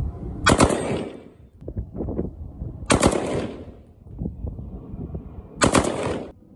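Kalashnikov-pattern rifle fired in three short strings of rapid shots, about two and a half seconds apart, each followed by a brief echo.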